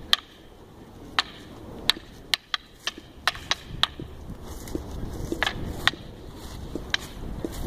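Wooden sticks clacking against each other in sparring: about a dozen sharp, irregular strikes, several in quick succession between two and four seconds in, with gaps between exchanges.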